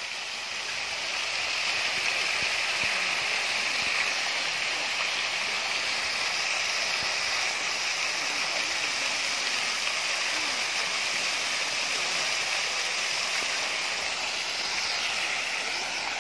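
Pond fountain jet spraying and splashing back into the water: a steady rush of falling water that builds over the first couple of seconds and then holds.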